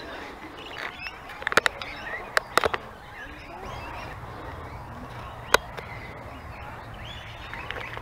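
Birds chirping faintly in the background, with a handful of sharp clicks: a cluster about one and a half seconds in, another around two and a half seconds, and a single one about five and a half seconds in.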